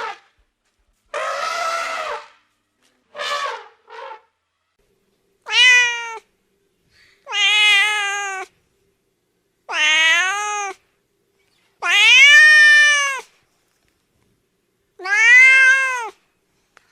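Domestic cat meowing repeatedly: a few short, rougher calls in the first four seconds, then five drawn-out meows, each rising and then falling in pitch.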